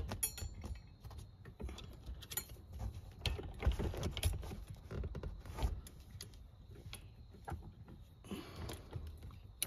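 Irregular small clicks, taps and rattles of hands working the metal lumbar-support cable and wire seat-back frame of a Honda Pilot front seat, with a quick run of ticks just after the start.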